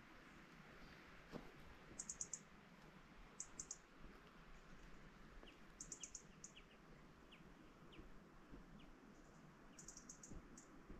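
Faint, very high bird chirps in quick clusters of three or four, coming every few seconds, with a few softer short chirps lower down in between, over a quiet outdoor hush.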